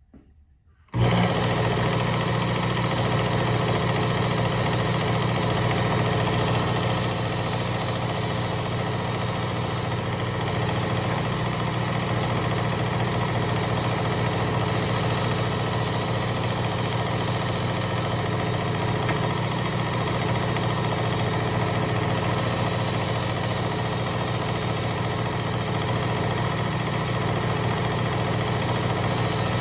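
Work Sharp Ken Onion Elite belt sharpener with blade grinder attachment switching on about a second in and running steadily. A high hiss swells three times, several seconds apart, and again near the end: the knife edge drawn across the moving abrasive belt.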